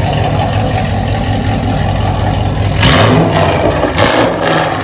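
2012 Chevrolet Camaro SS's 6.2-litre V8 running through a freshly welded-in X-pipe exhaust: a steady idle, then two revs, about three and four seconds in.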